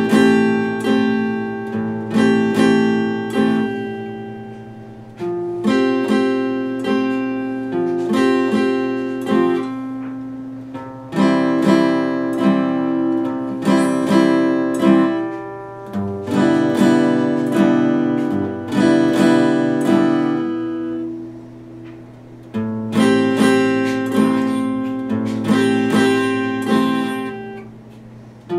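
Epiphone acoustic guitar played solo: chords picked in repeated patterns, in phrases of a few seconds that ring out and fade before the next begins.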